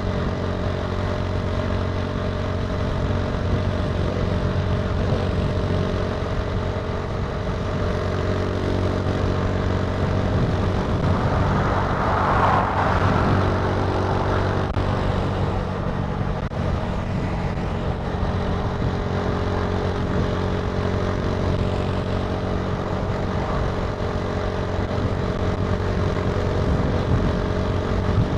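Italika TC300 motorcycle engine running steadily while riding. A brief swell of rushing noise comes about halfway through.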